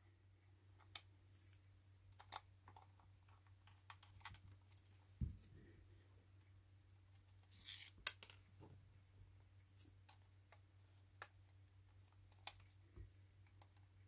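A small screwdriver driving tiny screws into the plastic base of a Razer Naga 2014 gaming mouse: faint, scattered clicks and ticks of the driver tip and screws against the plastic, with a louder click about eight seconds in and a faint low hum underneath.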